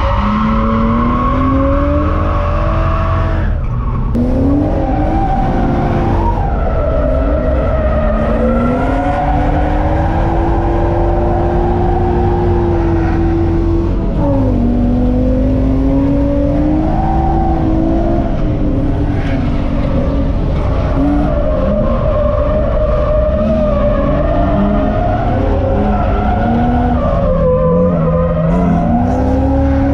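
BMW E30's M50B25 non-VANOS straight-six engine revving hard, its pitch rising and falling with the throttle and dropping sharply a few times, heard from inside the car. Tyres squeal as the car drifts.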